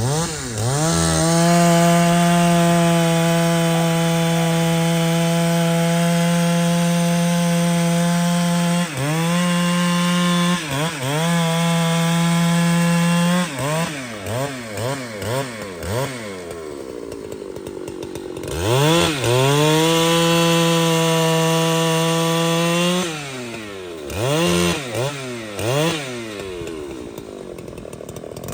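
Large two-stroke chainsaw held at full throttle, cutting wood. Several times the throttle is let off and blipped, so the engine drops and quickly revs up again.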